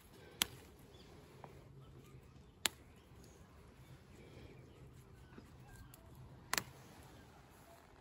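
Three sharp snaps, a couple of seconds apart, as coreopsis flower heads are picked by hand, over a quiet outdoor background.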